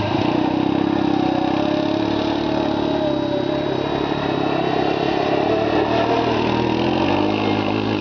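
ATV engine running at steady revs, its pitch dropping briefly near the end.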